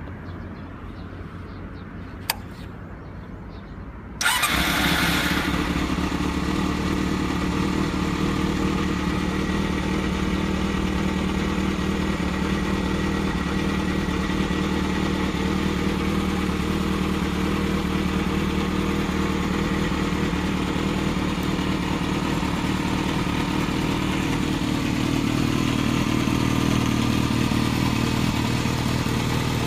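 Yamaha XJR400's air-cooled inline-four engine, breathing through a WR'S aftermarket silencer, is started: a single click about two seconds in, then the engine fires about four seconds in and settles into a steady idle through the exhaust, slightly louder near the end.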